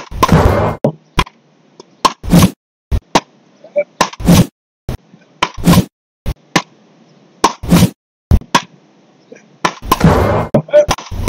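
Beach racket rally: the ball is struck back and forth with wooden paddles, a series of sharp whacks about every second to second and a half, some hits much louder than others.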